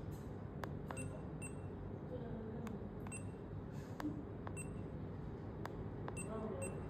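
Button presses on a handheld laser distance meter: about a dozen small clicks at irregular intervals, several of them with a short, high beep from the meter, over a low steady room hum.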